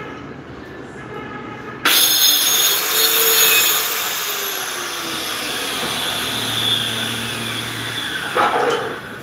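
Small handheld electric circular saw cutting a laminated wooden board. The motor hums lightly at first. About two seconds in the blade bites into the board with a sudden loud, high-pitched whining cut that goes on for about six seconds, with a short louder burst near the end as the cut finishes.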